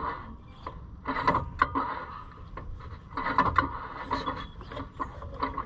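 A socket ratchet clicking in quick clusters as it is worked back and forth to turn a stiff engine over by hand, with metal rubbing and scraping. The engine is dry and under-lubricated and is being freed up with oil.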